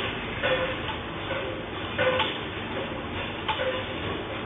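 A commercial kitchen shaking in an earthquake: a steady rumble with irregular clattering and clinking of metal and dishes.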